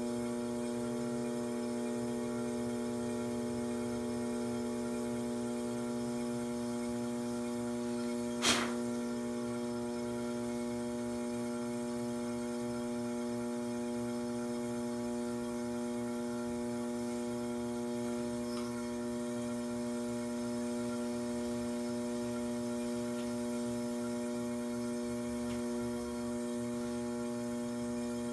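Electric pottery wheel's motor humming steadily as the wheel spins, with one sharp click about eight and a half seconds in.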